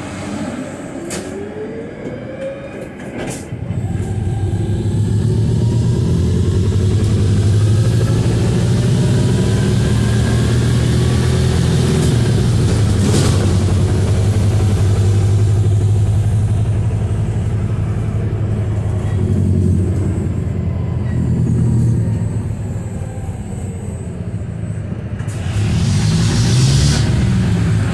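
Volvo B215RH hybrid city bus, heard from inside, pulling away. For the first few seconds the electric drive whines and rises in pitch. About three and a half seconds in the diesel engine cuts in, and it runs steadily and louder under load as the bus drives on, with a brief hiss near the end.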